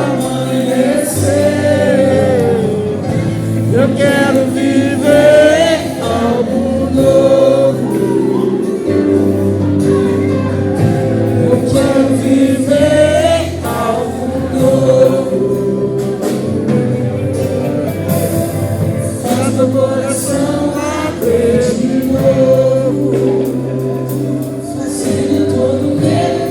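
Live gospel worship song: several voices singing together with vibrato over a steady instrumental backing with bass notes.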